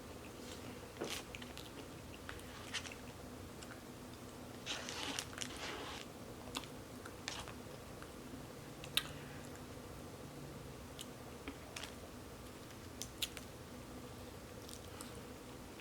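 A person eating close to the microphone: chewing and biting, with scattered crisp crunches and mouth clicks, and a denser stretch of crunching about five seconds in.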